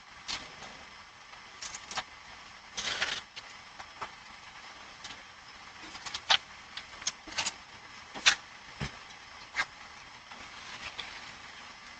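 Scattered sharp knocks and clanks over a steady hiss from a doorbell camera's microphone, with a short scraping rush about three seconds in and the loudest knocks clustered between six and ten seconds in.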